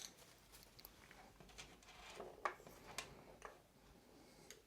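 Near silence with a few faint clicks and taps of small parts being handled, about two to three and a half seconds in.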